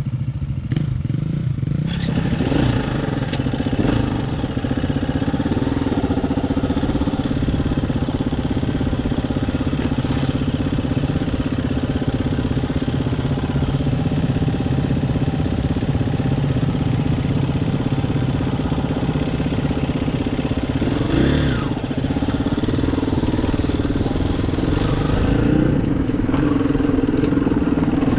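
Dirt bike engine running steadily while riding, its revs briefly rising and falling about two to four seconds in and again around 21 seconds.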